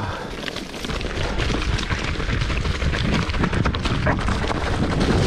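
Wind rumbling on the microphone of a mountain bike ride, with the bike's tyres and frame clattering over a rough trail; it gets louder about a second in.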